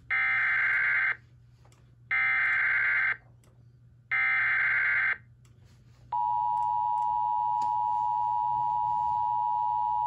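TFT EAS 911 encoder sending an Emergency Alert System SAME header for a severe thunderstorm warning: three one-second bursts of digital data tones about a second apart. About six seconds in, the steady two-tone EAS attention signal starts.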